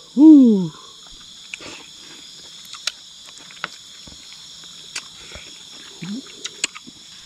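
Steady high chirring of night insects, with scattered light clicks and taps. A man makes a short loud voice sound that falls in pitch just after the start, and a brief, fainter one about six seconds in.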